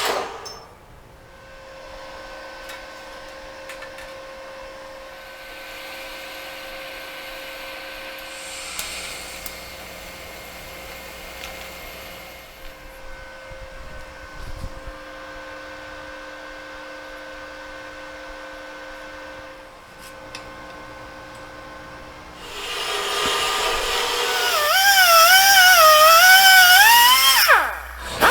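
A faint steady hum for most of the stretch. Then, near the end, an electric drill runs loudly with its motor pitch wavering up and down under the trigger and load, and winds down quickly as it is released.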